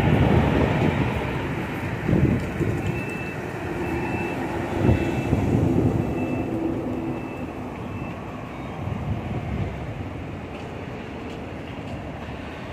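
KMB double-decker bus engine running low and heavy as the bus pulls in and stands at the stop, loudest in the first few seconds. A run of about six short high beeps sounds from about three seconds in until about seven seconds in.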